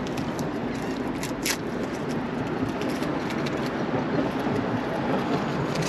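Steady rumble of road traffic passing over the bridge, growing slightly louder, with a few faint clicks as a hook is baited by hand.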